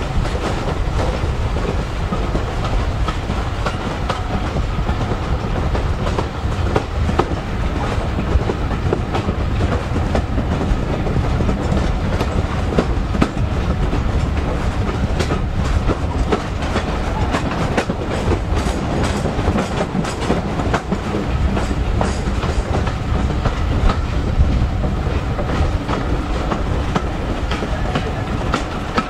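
Railway carriages running along the track: a steady rumble of steel wheels on rail, with frequent irregular clicks and clatter from the wheels and rail joints.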